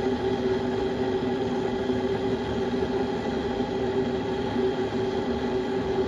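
AGU electric kettle heating water toward the boil: a steady hiss and hum with a low steady tone, as fine bubbles form on the bottom while the kettle is being descaled.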